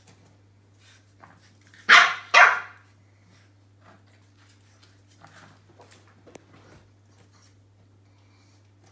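French bulldog puppy barking twice, about half a second apart, about two seconds in, at a new toy ball he is unsure of. Faint clicks and rustles follow.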